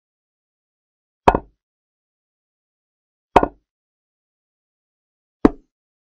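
Three short, sharp clicks about two seconds apart, each a brief knock with a short decay: the move sound of a digital chess board as pieces are played, in a silent game replay.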